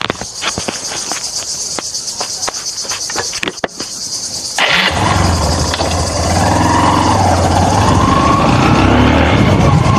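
Motorcycle engine running while riding, a steady low hum mixed with rushing wind noise. For the first four and a half seconds the sound is thinner, a high hiss with clicks, before the engine hum comes in suddenly.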